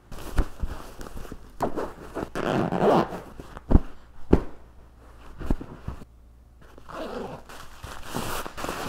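Throw pillows being handled: fabric rustling and several soft thumps as cushions are moved and set down, with a pillow-cover zipper being worked.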